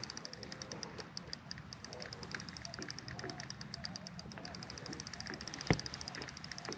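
Spinning reel ticking rapidly and evenly, about ten clicks a second, while a heavy fish is on the line. One sharp knock comes near the end.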